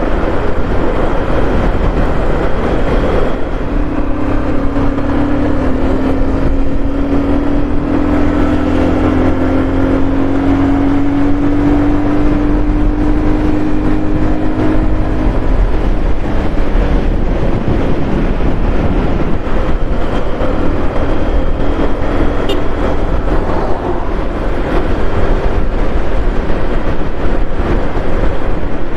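Moving road vehicle: steady loud road noise and rumble, with an engine note that climbs slowly in pitch for about ten seconds a few seconds in.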